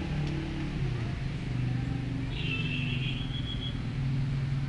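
Outdoor background: a steady low, motor-like drone, with a bird chirping for about a second partway through and again briefly near the end.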